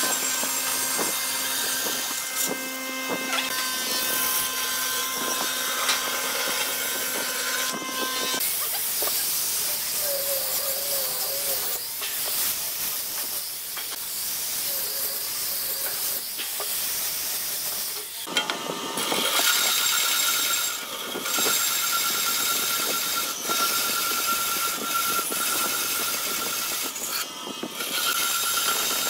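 Band saw running and cutting through thick pine blocks: a steady hiss of the blade in the wood over a constant whine. The sound changes abruptly twice, with a quieter stretch in the middle.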